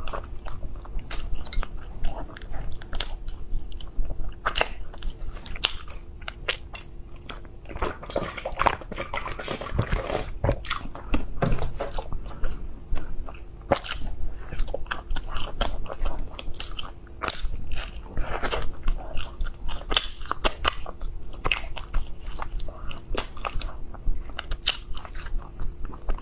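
A person biting into and chewing soft cream-filled ice cream bread, with many sharp wet mouth clicks and smacks at an irregular pace.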